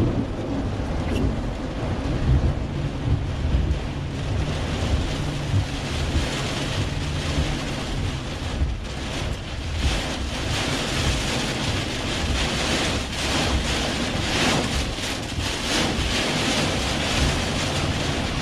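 Severe thunderstorm wind buffeting a parked vehicle, heard from inside the cab, a loud rushing noise with a low rumble. From about six seconds in it surges and eases in gusts.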